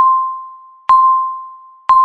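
Countdown timer's electronic beep, one clear single-pitched tone struck once a second, each starting sharply and fading away before the next.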